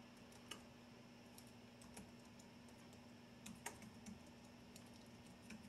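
Near silence with a few scattered faint clicks of a computer mouse, over a faint steady hum.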